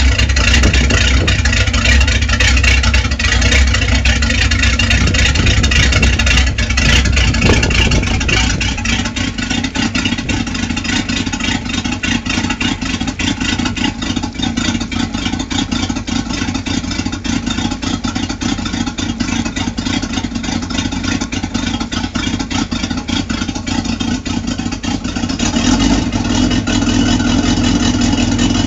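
V8 sterndrive boat engine running on the trailer with hose-fed cooling water, exhaust from twin transom pipes. It is louder and fuller for about the first nine seconds, settles to a lower, steadier running sound, then picks up again a few seconds before the end.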